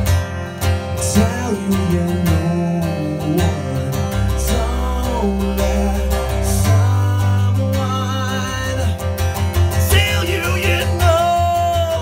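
Acoustic guitar playing a slow song, with a voice singing over it in places.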